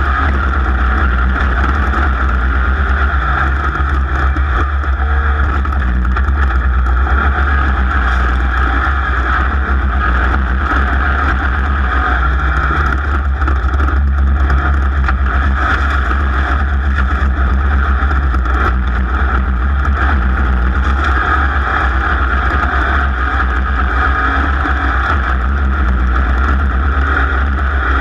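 A racing machine's engine running steadily at speed, with a loud, unbroken drone.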